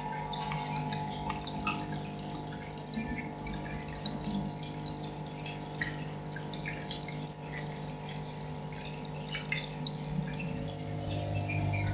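Aquarium water bubbling and dripping, many small pops and ticks, over the steady hum of the tank's pump. A lower hum grows louder near the end.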